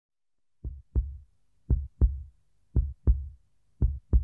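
Heartbeat sound effect: deep double thumps in a steady lub-dub rhythm, about one beat a second, starting about half a second in.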